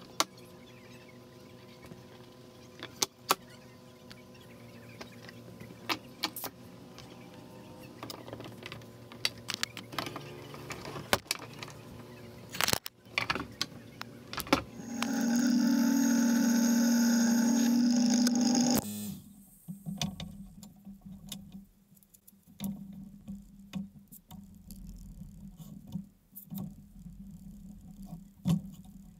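Metal clamps clinking, knocking and clicking as a glued stack of wood strips is clamped up, with a loud steady mechanical hum for about four seconds midway.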